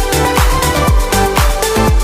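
Background electronic dance music with a steady kick-drum beat and synth melody.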